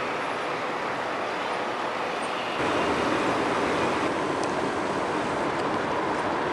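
Steady noise of road traffic, growing louder about two and a half seconds in.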